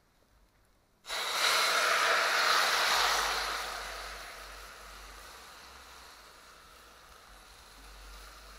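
Loud sizzle of half-cooked vegetables and their liquid being poured onto fried fish in a hot pot. It starts suddenly about a second in, is loudest for about two seconds, then fades to a low steady sizzle.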